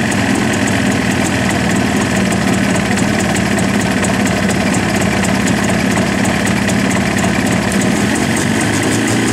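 Jawa 350 two-stroke twin engine idling while still cold. At about 40 degrees it is not yet warm enough and runs unevenly until it heats up.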